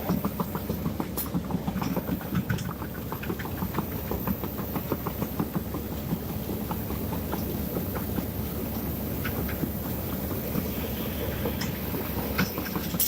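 Diesel engine of tracked heavy equipment running steadily, with a rapid clicking clatter over it that is busiest in the first half.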